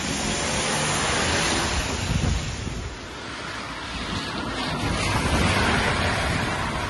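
Steady rush of floodwater across a street. Then, about halfway through, a car drives through standing water, and the hiss of its tyres throwing up spray swells and eases off near the end.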